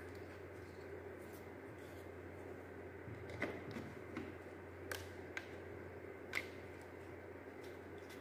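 Light plastic clicks and taps from handling the opened plastic housing of a mini handheld fan, a few sharp clicks a second or so apart, over a steady low hum.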